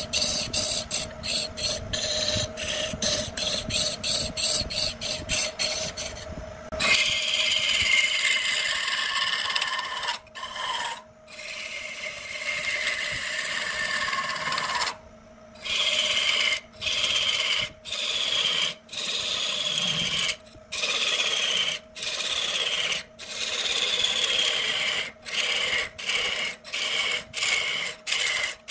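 A turning tool cutting a spinning wood spindle on a lathe, peeling off thick shavings. Quick short cuts at first, then from about a third of the way in, longer passes, several with a falling whine, broken by short pauses, over a steady hum.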